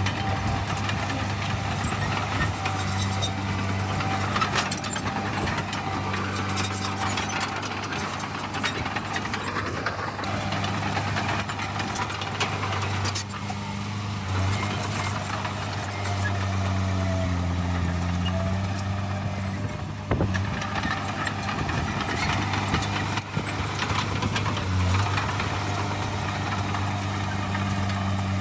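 Heavy diesel engines of earthmoving machines running steadily, a low drone that dips in pitch briefly about two-thirds of the way through and again near the end, with scattered knocks.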